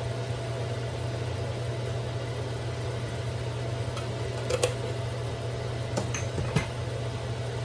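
A steady low kitchen hum, with vegetables cooking quietly in a wok. A few light clicks come about halfway through and again about six seconds in.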